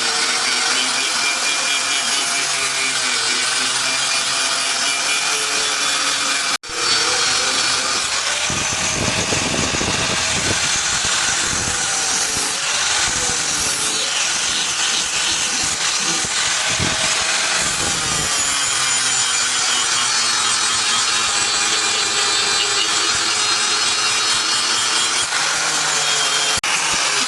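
Power tool grinding steel, running continuously with its pitch wavering as the load changes, with a short break about six seconds in.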